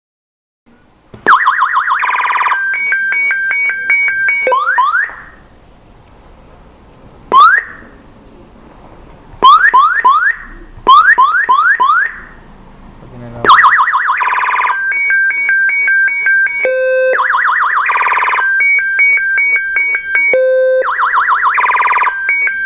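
Aftermarket motorcycle alarm siren sounding, starting about a second in. It cycles through several electronic tones: fast warbles, rapid beeps and rising whoops. It breaks off partway for a few short bursts of rising chirps, then sounds continuously again.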